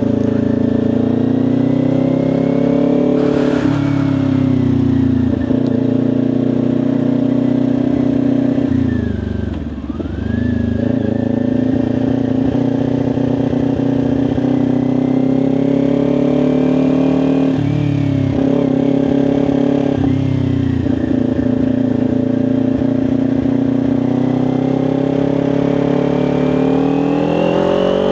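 Kawasaki Ninja 400's parallel-twin engine running at steady highway revs. The revs drop and pick back up about a third of the way through, and climb near the end as the bike accelerates.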